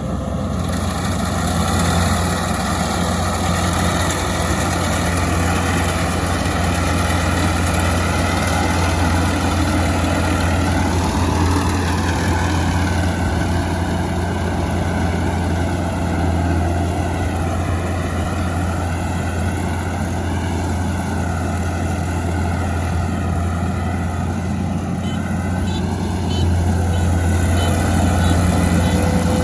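Kubota combine harvester running steadily while cutting rice, its engine and machinery note wavering slightly in pitch.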